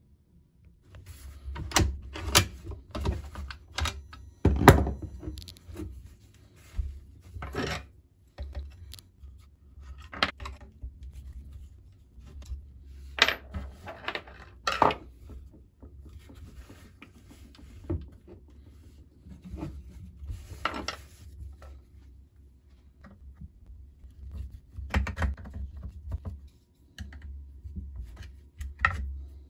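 Metal parts of a Carcano M91 rifle being handled and taken apart on a wooden workbench: irregular clicks, clinks and knocks of steel on steel and on wood, with dull handling thumps under them. Near the end a screwdriver works at the front barrel band.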